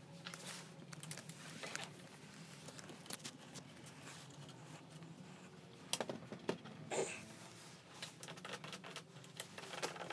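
Light clicks, taps and rustling of hands working at a scooter's handlebar switch housing and heated-grip wiring, with a few sharper clicks about six and seven seconds in, over a steady low hum.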